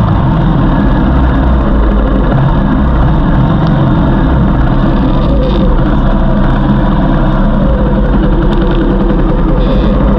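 A vehicle's engine running steadily, heard together with road noise, the sound heavy in the low end and unchanging.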